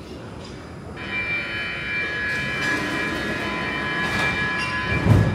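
Stockholm metro train standing at the platform with its doors open. A steady high whine of several tones starts suddenly about a second in, and a heavy low thump comes near the end.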